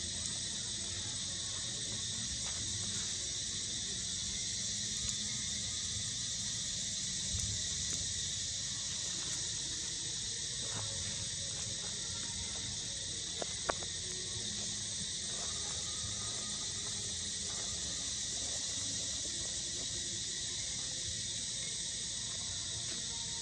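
Steady, high-pitched chorus of insects in the trees, over a faint low rumble, with a couple of sharp clicks about thirteen and a half seconds in.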